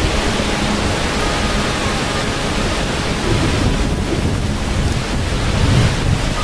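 Steady, dense rush of falling water, with a low rumble swelling briefly near the end.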